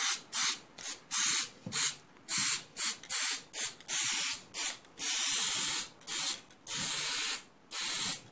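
Aerosol spray-paint can sprayed in about a dozen short bursts of hiss, each a fraction of a second to about a second long, with brief pauses between.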